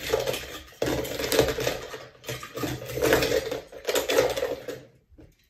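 Die-cast toy cars clattering and rattling against each other as a hand stirs them around in a bowl, in four rounds of mixing that die away near the end.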